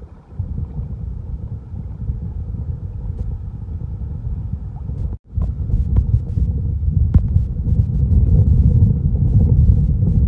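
Wind buffeting the microphone: a loud, uneven low rumble that drops out briefly about five seconds in.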